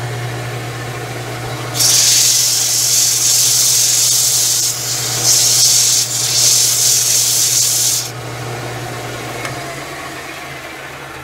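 Hand-held sandpaper pressed against a wooden spindle spinning on a lathe: a loud hiss of sanding for about six seconds, broken twice briefly, over the steady hum of the lathe's electric motor, which fades near the end.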